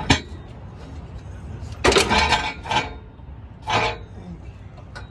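Metal tools and parts clinking and clanking as they are handled: two sharp clicks at the start, a longer clatter about two seconds in, and one more clank about four seconds in.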